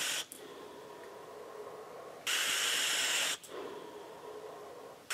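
A person drawing a hit through a dual-coil rebuildable dripping atomizer with its cooling turbine removed and its airflow three-quarters open, then blowing out a large vapour cloud. It sounds as airy hissing: a loud stretch breaks off just after the start, another lasts about a second from about two seconds in, and a third starts near the end, with softer breath hiss between.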